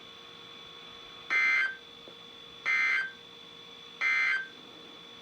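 NOAA Weather Radio SAME end-of-message data bursts: three short, harsh buzzing bursts of digital tones, about a second and a half apart, over a faint steady radio background hum. They mark the end of the weekly alert test message.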